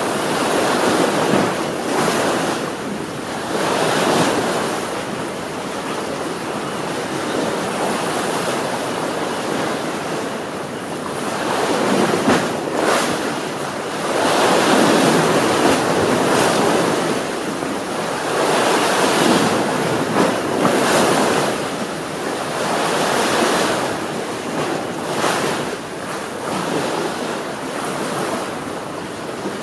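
Sea waves washing onto the shore, the surf rising and falling in surges every few seconds, with the strongest swells around the middle of the stretch.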